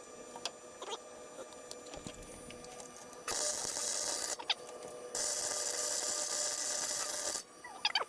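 MIG welder welding a car's rear differential: two bursts of steady crackling hiss, the first starting about three seconds in and lasting about a second, the second lasting about two seconds.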